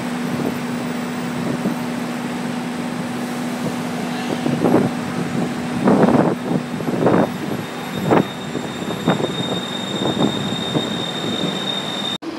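Steady rushing background noise at an elevated Skytrain station, with a low hum in the first half and a thin, high steady whine from about seven seconds in. A run of short louder bursts comes about once a second through the middle.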